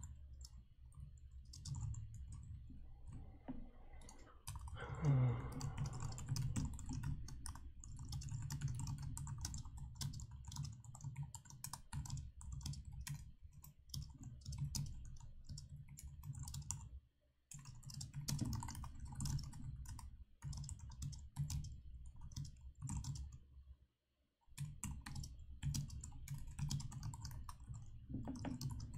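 Computer keyboard typing in quick runs of keystrokes, with a couple of short pauses. A brief falling tone about five seconds in.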